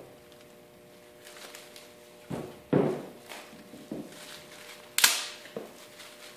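A handful of sharp wooden knocks and clacks as small pieces of wood and the glue bottle are picked up and set down on the plywood, the loudest about five seconds in.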